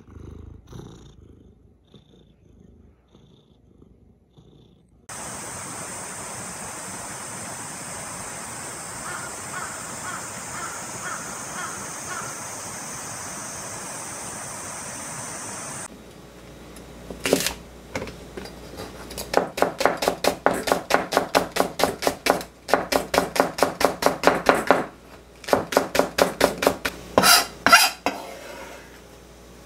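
Kitchen knife chopping green onions on a cutting board in fast runs of sharp strokes, several a second, starting about halfway through; this is the loudest sound. Before it, a crow cawing a few times over a steady high hiss, and at the very start a faint cat purr.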